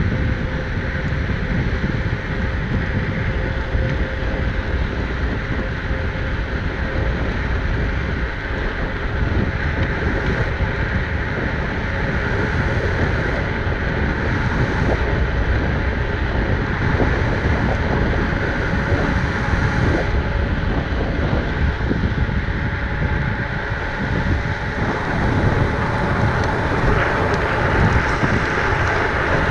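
Wind rushing over the microphone with a heavy low buffeting, mixed with the steady roll of mountain-bike tyres on rough asphalt while riding.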